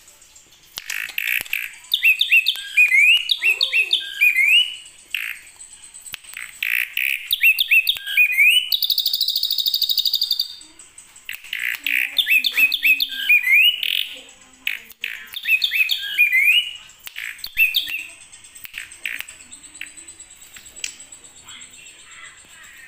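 Ashy drongo singing loud, rapid runs of sharp rising whistles in bursts of a few seconds, with a held buzzy note about nine seconds in; it goes quieter near the end. Its song is filled with mimicry of the white-rumped shama (murai batu).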